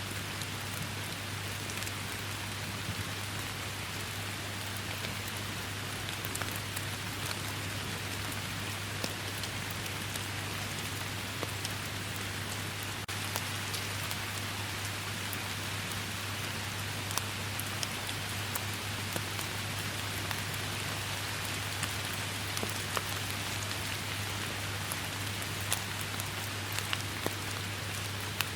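Steady rain falling, an even hiss with individual drops ticking sharply here and there, over a steady low hum.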